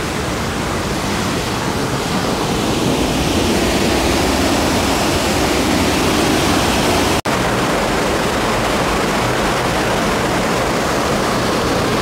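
Waterfall: white water rushing and churning steadily through a stone channel, with a brief break about seven seconds in.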